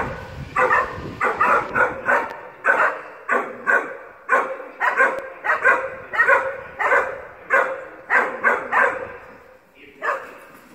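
A dog barking over and over, about two barks a second, with a short break about nine seconds in.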